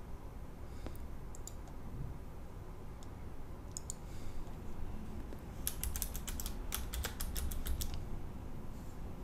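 Computer keyboard typing: a quick run of about fifteen keystrokes a little past the middle, after a few scattered clicks.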